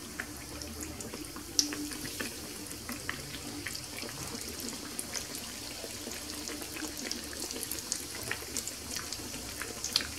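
Yeast-dough beignets frying in hot oil in a shallow pan: a steady sizzle of many small crackling pops. It flares briefly louder about a second and a half in and again near the end, as further pieces of dough go into the oil.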